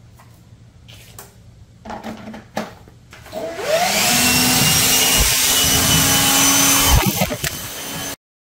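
A few light clicks and knocks, then a lawn mower's motor starts with a rising whine, runs steadily for about three seconds, and winds down before stopping.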